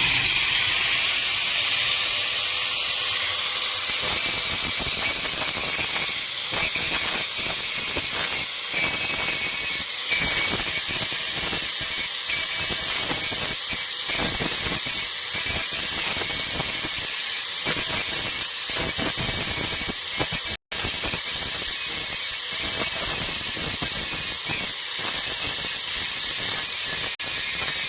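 Electric angle grinder running and grinding metal, a loud, high-pitched screeching hiss that varies as the disc bites. It is grinding down the raised, water-damaged surface and damaged slots of an old ceiling fan's rotor so the rotor stops rubbing. The sound breaks off for an instant about two-thirds of the way through.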